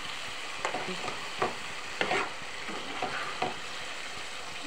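Chicken curry sizzling in a pan with a steady hiss, while a spatula scrapes and knocks against the pan about five times as the pieces are stirred.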